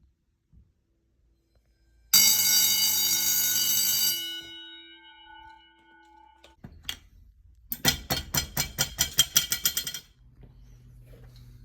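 Fire alarm bell ringing loudly for about two seconds, then cut off and ringing down in lingering tones. A few seconds later a bell rings again for about two seconds, its strokes coming quickly and distinctly.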